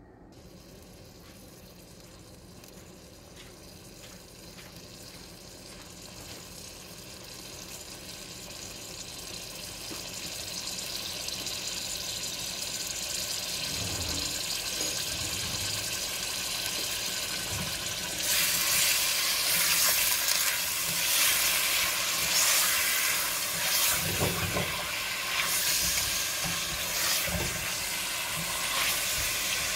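Goat meat chunks frying in hot oil in a pot on a gas burner, sizzling louder and louder as the pan heats and jumping in loudness about two-thirds of the way through. Near the end a spatula stirs the meat, with a few knocks against the pot.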